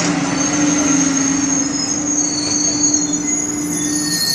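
AMT bilevel commuter train coaches rolling slowly past while braking to a stop at the station, with several high-pitched wheel squeals that grow stronger toward the end over a steady low hum.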